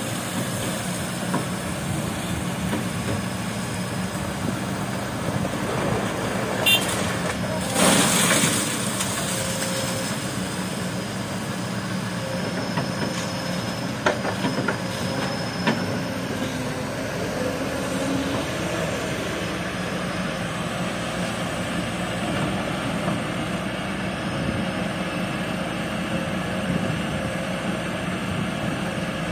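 Kobelco hydraulic excavator's diesel engine running steadily while it loads river sand and gravel into a dump truck. About eight seconds in, a bucketful drops into the truck's steel bed with a loud crash lasting about a second. A few sharper knocks follow later.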